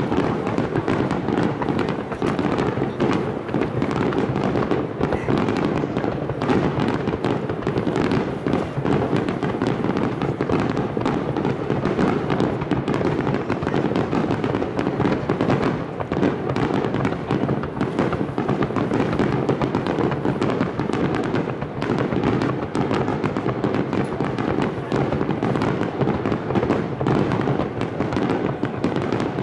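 Dense, unbroken barrage of fireworks: aerial shells booming and crackling one on top of the next, with no pause throughout.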